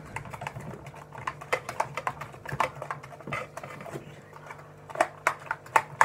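Light, irregular clicks and taps of fingers working pastrami slices through beaten egg on a stainless-steel plate, metal against metal and wet food.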